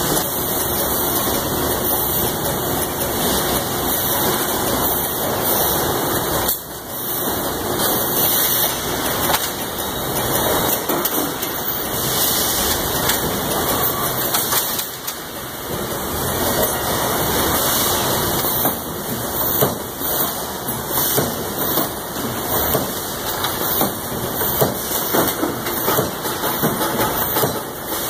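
Steady factory-floor machinery noise from robotic resistance-welding cells: a constant hiss and hum with irregular short knocks and clanks, more frequent in the second half.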